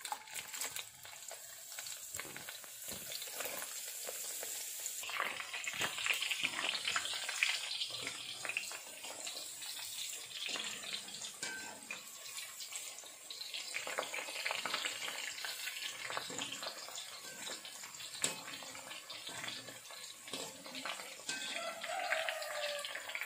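Small red onions (shallots) frying in hot oil in a steel wok: a steady sizzle and crackle that grows louder about five seconds in, as they are stirred with a wire-mesh spider strainer.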